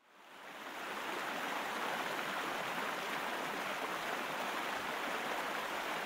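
River rapids rushing steadily, fading in from silence over about the first second.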